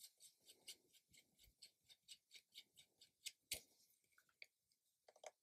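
Faint scattered metallic ticks and scrapes of a muzzle brake being screwed by hand onto a rifle's threaded barrel, with one louder click about three and a half seconds in.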